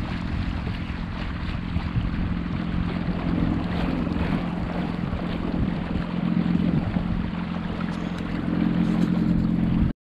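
Wind buffeting the microphone over water rushing and splashing along the hull of a kayak under way, with a steady low hum from the Old Town Sportsman 106's Minn Kota electric drive motor.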